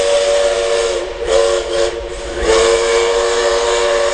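Steam locomotive 5917's whistle blowing a chord of several notes over hissing steam: the blast carried over from before stops about a second in, a short blast follows, then a long blast starts about halfway through.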